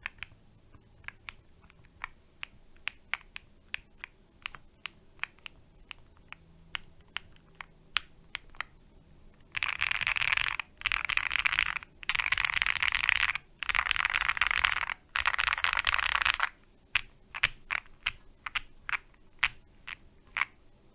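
Mechanical keyboard with lubed polycarbonate Holy Panda tactile switches on a polycarbonate plate, being typed on. First comes a run of single, separate keystrokes. About halfway through are four stretches of very fast, continuous key presses. Single keystrokes then return near the end.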